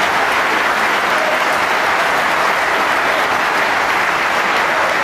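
Snooker audience applauding steadily after a shot.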